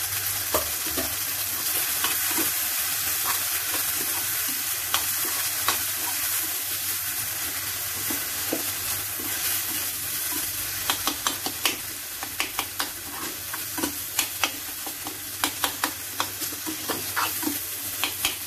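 Chopped tomatoes, green chillies and spices sizzling in hot oil in a frying pan while a metal spatula stirs and presses them. From about halfway through, the spatula's scrapes and taps on the pan come quick and frequent over the steady sizzle.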